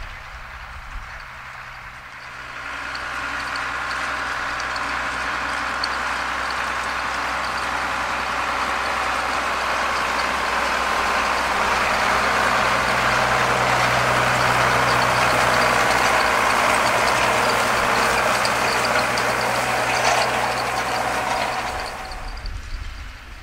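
Ford New Holland 7840 tractor's diesel engine running steadily while it pulls a Fella rotary grass rake. The noise of engine and rake swells a few seconds in, is loudest in the middle as the machine passes close, and drops back near the end.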